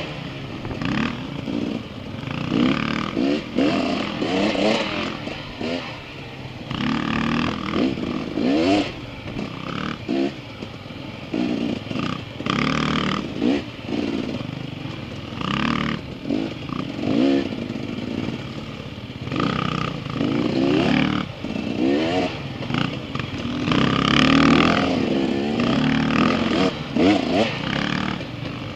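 Dirt bike engines revving, their pitch climbing and dropping again and again with the throttle, the nearest being the filming rider's own bike.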